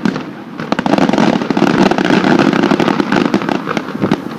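Aerial firework shells bursting in quick succession: a dense run of bangs and crackling from about a second in, thinning out near the end.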